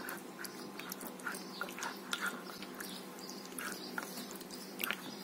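Yogurt-marinated chicken pieces being stirred and turned with a spoon in a glass bowl: wet squelching with irregular small clicks and squishes.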